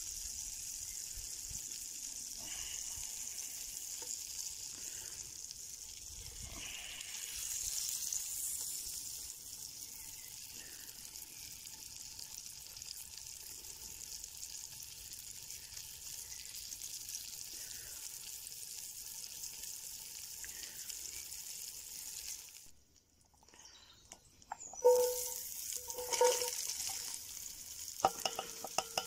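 Beef burger patties frying in hot oil in a cast-iron Dutch pot over a campfire: a steady sizzle that breaks off briefly about three quarters of the way through. Near the end come two ringing knocks, then a quick run of small clicks as chopped onion is tipped into the pot.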